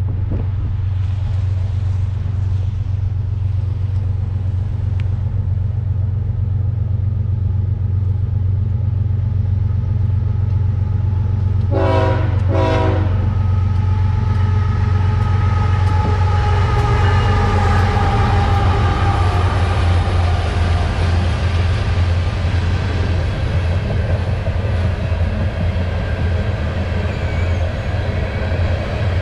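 A diesel-hauled freight train approaching and passing: the lead locomotive gives two short horn blasts about twelve seconds in. The locomotives then go by, followed by coal hopper cars rolling past on the rails.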